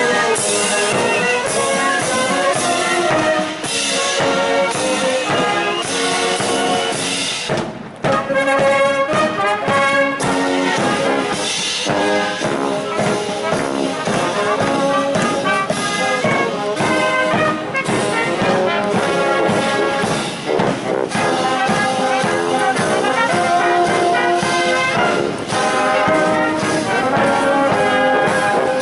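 Military brass band playing a march, with trumpets and trombones carrying the tune.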